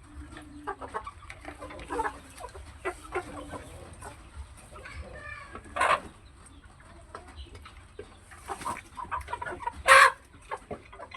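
Chickens clucking, with two louder calls standing out, one about six seconds in and one near the end.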